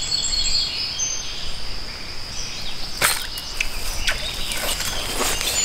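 Outdoor streamside ambience: a steady high insect drone with birds chirping over a constant hiss of background noise. About three seconds in there is one sharp click or knock, followed by a few lighter clicks.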